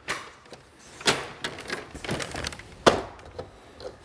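Plastic panels of a Mattel Monster High High School Playset being folded shut by hand, clicking and knocking as the parts snap and bump into place. There are three louder knocks: near the start, about a second in, and just before three seconds in.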